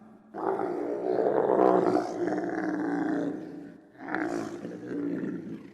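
Giraffe calling: one long, rough-voiced bellow lasting about three seconds, then a shorter second call about four seconds in.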